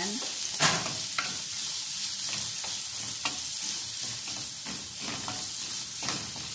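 Diced onions sizzling in hot oil in an aluminium frying pan, stirred with a wooden spatula that scrapes and knocks against the pan several times.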